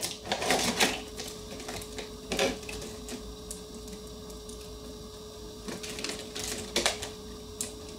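Scattered clicks and taps of a clear plastic blister pack being handled and slid off a table, over a faint steady hum.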